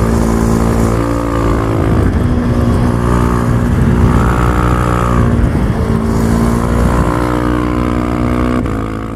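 Motorcycle engine heard on board while riding, running hard with a steady note that dips briefly twice, about two and five and a half seconds in, and drops off near the end.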